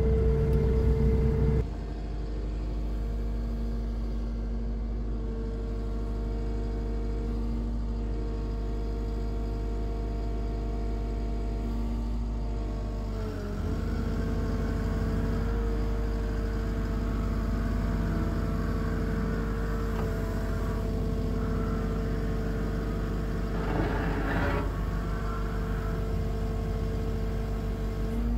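Atlas 140 W wheel excavator's diesel engine running steadily, louder for the first second and a half as heard inside the cab. From about halfway through, a hydraulic whine joins it as the boom and bucket are moved, with a brief surge of noise a few seconds before the end.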